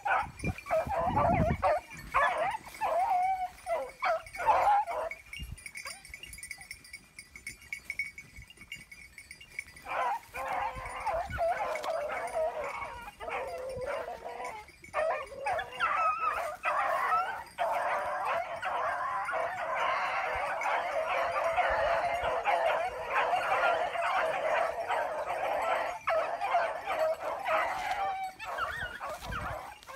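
A pack of running hounds baying on a rabbit's trail, many voices overlapping. The calls come in short bursts at first and stop for a few seconds. They then pick up again and swell into a continuous chorus in the second half.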